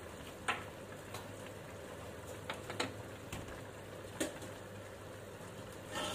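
Stainless spatula knocking and scraping against a wok while stirring a simmering curry: about six sharp clinks spread over the few seconds, over a steady low hum, with a longer scrape near the end.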